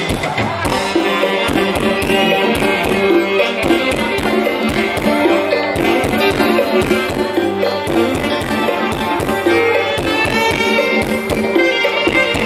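Live Isan lam phloen band music over a steady drum beat.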